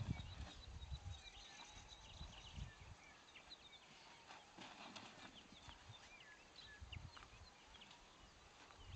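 Near-silent open-air quiet with faint bird chirps scattered throughout and a few low rumbles, the strongest right at the start.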